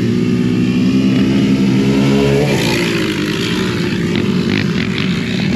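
Off-road vehicle engine running close by at a steady pitch, which shifts and drops about two and a half seconds in.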